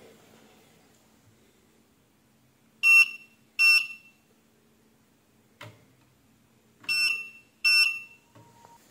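Short, high electronic beeps from a small buzzer, in two pairs about four seconds apart, with a faint click between them.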